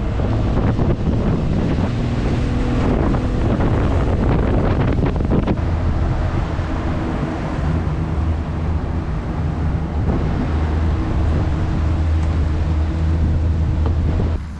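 Boat motor running steadily under way, with wind buffeting the microphone. It starts and cuts off abruptly, just before the end.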